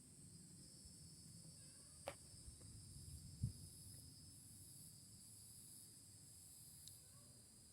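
Faint, steady chirring of insects in two high bands, over a faint low rumble. A sharp click comes about two seconds in, and a short low thump a little over a second later.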